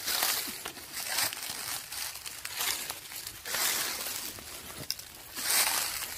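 Slow footsteps crunching through dry fallen leaves, one crackly step roughly every second.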